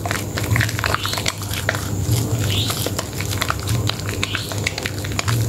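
Soaked, softened bar of soap squeezed and rubbed between wet hands in thick lather: continuous squishing and squelching with many small clicks and pops.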